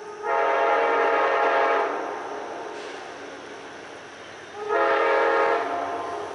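Locomotive's multi-chime air horn sounding two blasts as the train approaches a grade crossing, first a long blast and then, after about three seconds, a shorter one. This is part of the crossing horn signal.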